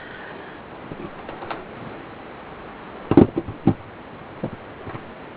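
A few light knocks and clicks over a steady background hiss, the loudest cluster about three seconds in.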